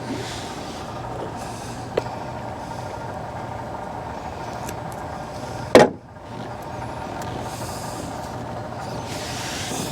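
A sharp click about two seconds in and a loud clunk near six seconds in, from wiring and handling parts, over a steady background hum.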